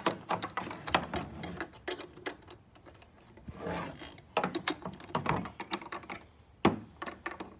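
Socket ratchet clicking in several short quick runs, with pauses between, as the nuts on a waste valve's flange bolts are run down. A softer rub is heard midway.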